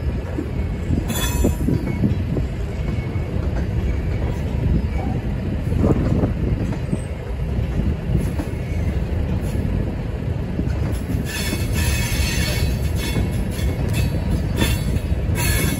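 Freight train of covered hopper cars rolling past, a steady rumble of steel wheels on rail. A brief high wheel squeal comes about a second in, and longer squeals come from about eleven seconds in until near the end.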